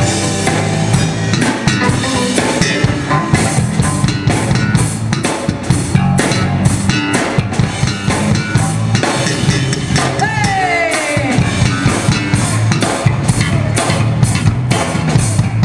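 Live band playing an instrumental groove with the drum kit prominent: steady kick and snare hits, with a falling pitched glide about ten seconds in.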